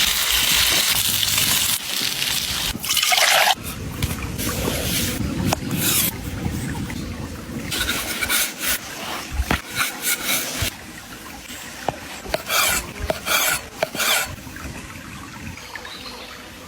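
Irregular rubbing and scraping strokes, after a steady hiss in the first two seconds.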